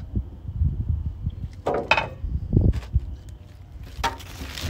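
Wind buffeting the microphone, with a brief knock about two seconds in and a white paper towel rustling near the end as it is handled.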